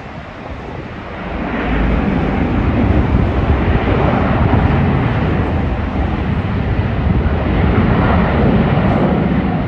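Jet airliner's engines growing loud as it passes close, the noise rising about a second in and then holding steady.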